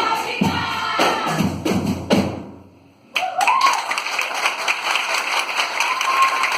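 Music with a steady drum beat ends, and after a short pause about three seconds in an audience breaks into applause, with a voice cheering over the clapping.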